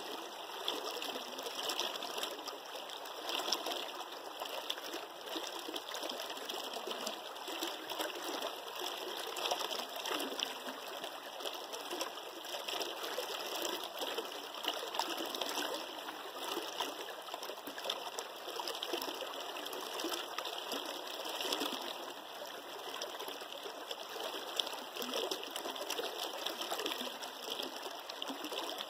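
A shallow mountain creek rushing and burbling over rocks, close by and steady.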